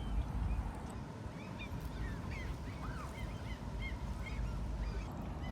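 A group of birds giving many short, quick calls that overlap one another, over a steady low rumble.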